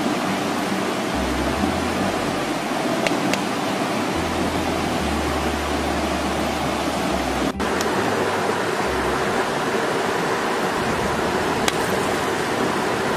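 Steady rush of a shallow rocky river with small rapids, water running over stones, with a brief dropout about seven and a half seconds in.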